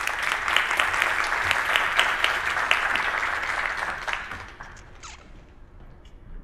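Audience applauding, fading out about four to five seconds in.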